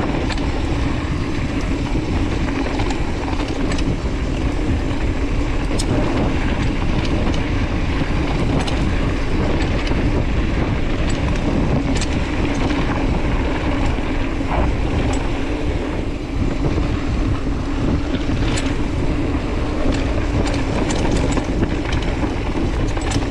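Mountain bike riding fast down a dirt singletrack: a steady rumble of knobby tyres on the dirt and rattle of the bike, with wind rushing over the microphone and a few sharp clicks and knocks from the trail.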